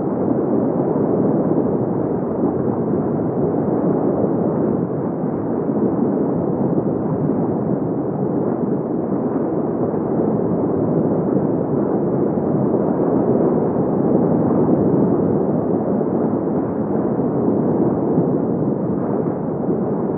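Underwater ambience: a steady, dense low rushing noise of moving water, with no distinct events.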